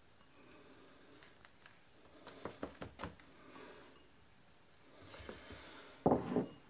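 Dry bacon cure sprinkled from a bowl onto a slab of pork in a plastic box, a faint rustle and patter of grains. Near the end come a few louder soft taps as hands go in to work the cure in.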